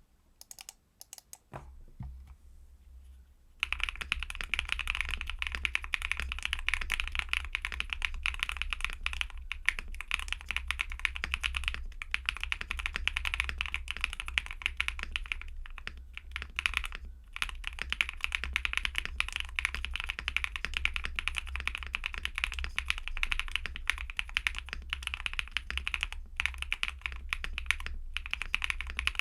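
Typing on an Akko ACR Pro 68 mechanical keyboard with stock Cream Soda switches, a polycarbonate plate, foam-stuffed case, lubed stabilizers and GMK-style clone keycaps. A few single key presses come first, then steady fast typing from about four seconds in, with a brief pause about halfway.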